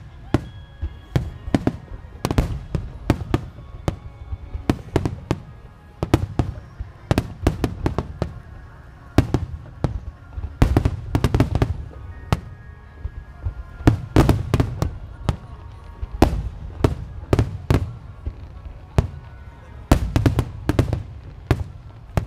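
Starmine fireworks barrage: aerial shell bursts going off in rapid succession, sharp bangs in dense clusters over a low rumble, heaviest about eleven, fourteen and twenty seconds in.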